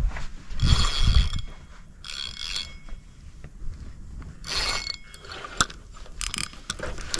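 Fishing reel being cranked and ratcheting in several short bursts under a second each, its gears clicking, as the line is worked against something heavy stuck in underwater structure.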